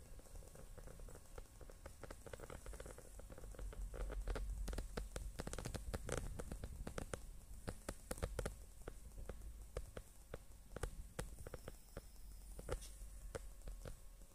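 Soft wet clicking and smacking from a mother cat and her two-week-old nursing kittens, densest for a few seconds in the middle, over a low rumble.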